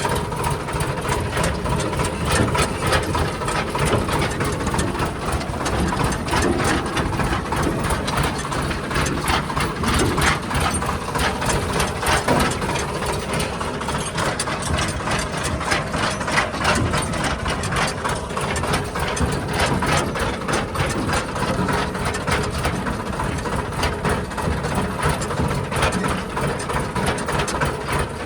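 Diesel engine of a JCB 3DX backhoe loader running steadily while it loads soil, with many sharp clattering knocks throughout.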